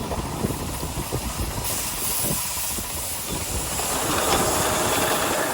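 Live steam miniature locomotive venting steam: a loud hiss sets in about a second and a half in and grows fuller near the end, over a low rumble.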